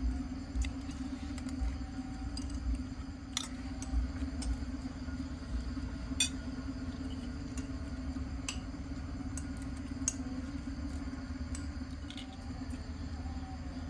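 Scattered light clinks and taps of tableware, a dozen or so spread irregularly, over a steady low hum.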